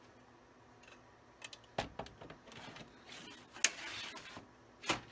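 Hands working a power supply module in a Sun Fire V440 server chassis: a few sharp clicks and knocks, then a scraping, sliding stretch with a sharp click in it, and another knock near the end.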